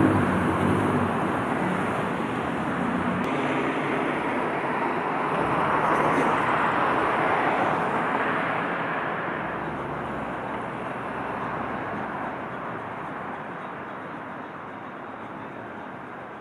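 Street traffic: a vehicle's engine passes at the start, road noise swells again about six seconds in, then fades slowly away.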